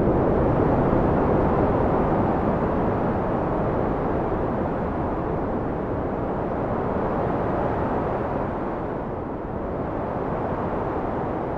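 Wind blowing as a steady low rush of noise, easing off somewhat about three-quarters of the way through.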